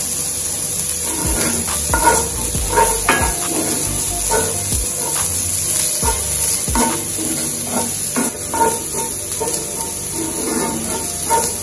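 Wooden spoon stirring and scraping diced onion, green pepper and garlic as they sauté in a little oil in a cast-iron skillet. A steady sizzle runs underneath, with irregular scrapes of the spoon against the pan.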